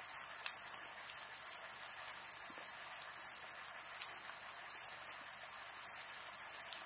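Night insects chirping: short, high-pitched chirps repeat irregularly, two or three a second, over a steady high-pitched drone and an even hiss.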